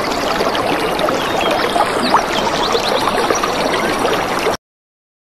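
Trickling, running water ambience, a steady bed of small bubbling blips, that cuts off abruptly near the end.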